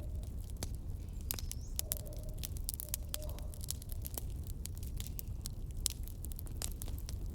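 Fire crackling: irregular sharp pops and snaps over a low steady rumble.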